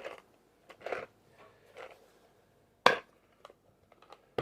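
Drill bits and their hard plastic case being handled: soft scrapes and knocks, then two sharp plastic clacks, one about three seconds in and one at the end.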